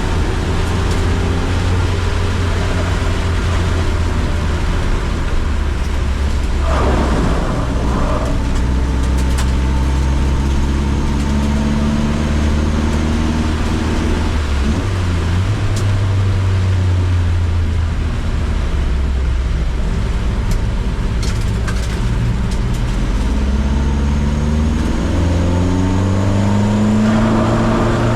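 Car engine running hard on a circuit lap: its note climbs under acceleration and drops at gear changes and braking, then rises steadily again near the end.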